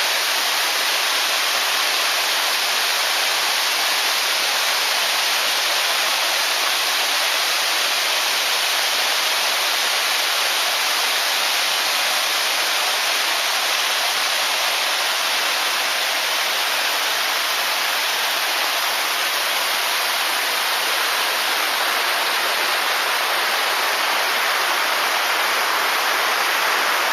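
Hossawa Falls waterfall pouring steadily: a constant, even rush of falling water, heaviest in the hiss, with no change over the whole stretch.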